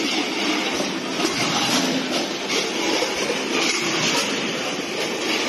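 Automatic can packaging line running: steady mechanical noise of conveyors, a rotary can-filling turntable and a weigher working together.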